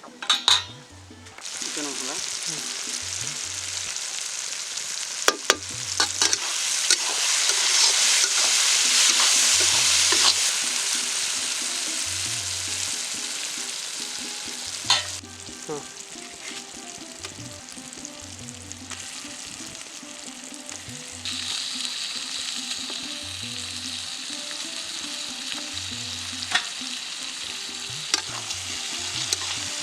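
Chicken sizzling as it fries in oil in a pan and is stirred, with a few sharp clicks of the stirring utensil against the pan. The sizzle is loudest a third of the way in and settles into a steadier higher hiss about two-thirds through.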